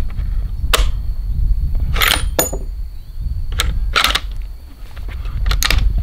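About eight sharp metallic clicks at irregular intervals as a scoped rifle is handled and its scope turret is turned, some coming in quick pairs, over a steady low rumble.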